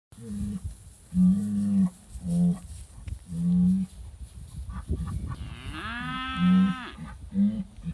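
British White cattle bellowing over and over: a string of short, low moos, and one long, higher call about five and a half seconds in whose pitch rises and then falls. The cows are riled up over an old cow hide.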